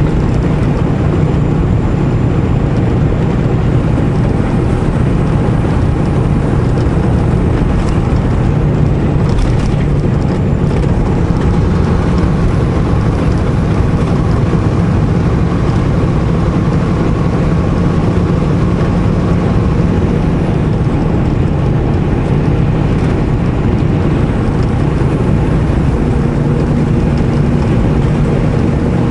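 Semi truck's diesel engine and road noise, steady, heard inside the cab while driving; the engine note changes near the end.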